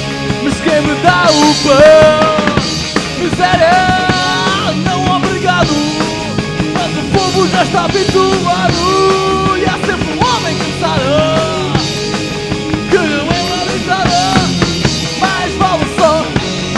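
Amateur rock band playing live: drum kit, electric guitars and bass, with a wavering melody line over them.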